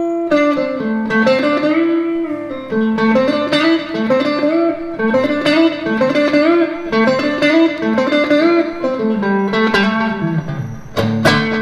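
Squier Stratocaster electric guitar playing a blues lick of single notes, many of them string bends that push the pitch up and let it back down.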